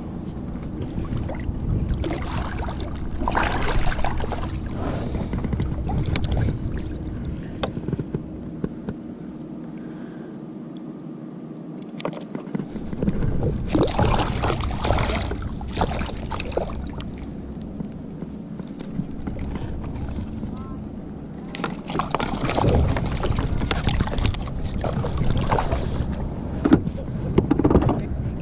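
Water sloshing and splashing around a kayak, with wind rumbling on the microphone. The wind drops out for a few seconds near the middle, and there are several louder spells of splashing.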